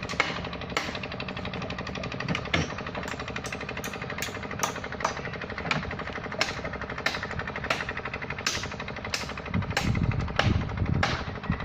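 Machine engine running with a fast steady rattle, cut by a sharp knock about every three quarters of a second.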